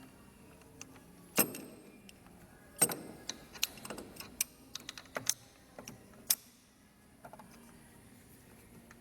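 Irregular metallic clicks and clinks of hand tools on engine bolts, with two sharp knocks early on and a run of quicker small clicks in the middle, as a wrench with an angle gauge turns the camshaft bolts through their final angle.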